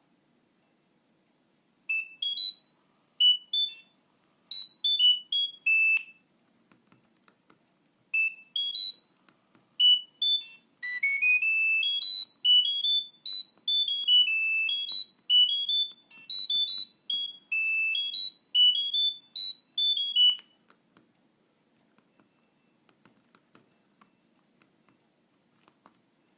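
Nokia 2610 mobile phone playing a ringtone through its small loudspeaker: a melody of short, high electronic notes, one at a time. It pauses briefly about six seconds in, then runs on until it stops about twenty seconds in.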